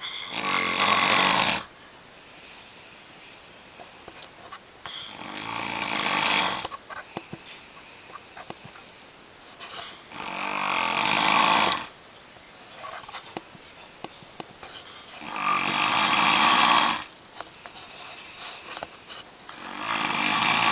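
A man snoring in his sleep: five loud, rasping snores about five seconds apart, each lasting a second or two, the last one starting near the end.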